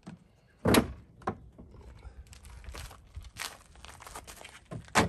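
Plastic clips of an Audi A6's front bumper snapping loose as the bumper is pulled free by hand, with the plastic creaking and rustling. A loud sharp pop comes under a second in, a smaller one shortly after, light clicks through the middle, and more sharp pops near the end.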